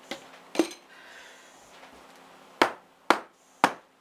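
Wooden soap loaf mould filled with fresh soap batter, rapped against a tabletop about five times in sharp knocks: two near the start, then three about half a second apart in the second half. The tapping settles the batter in the mould.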